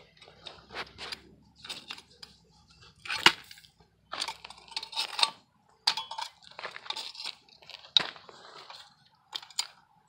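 Steel tongs digging through loose, dry casting sand in a metal bucket to pull out a bronze lost-foam casting: irregular scraping and crunching of sand, with sharp metal clinks, the loudest about three seconds in and another near eight seconds.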